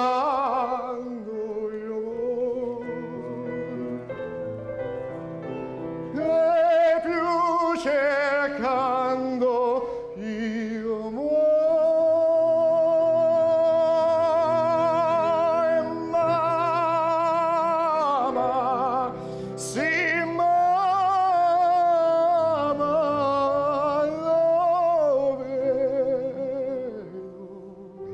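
A man singing through a microphone in an operatic style with a wide vibrato, to piano accompaniment. About eleven seconds in he holds one long note for some five seconds, and from about twenty seconds in he sustains another long phrase.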